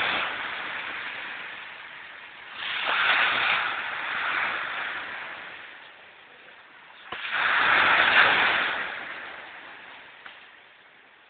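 Small sea waves breaking and washing up a pebble beach, each wash swelling and fading away. A fading wash at the start, one about three seconds in and a louder one about seven seconds in that dies off near the end.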